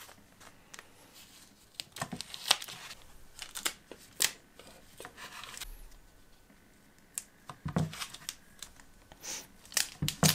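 Adhesive tape being pulled off the roll, laid in strips and smoothed down by hand on a board: irregular sharp crackles and short ripping sounds, with a quieter stretch in the middle.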